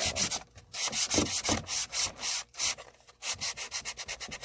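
Sandpaper rubbed by hand over a wooden board, in quick back-and-forth strokes, several a second, with the wood grain.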